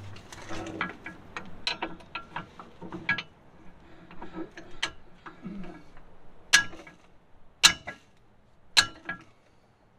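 Metal tools knocking and clinking against the steel swing arm and its shock mounts as it is worked loose from under the trailer: scattered clicks, then three sharp strikes about a second apart near the end.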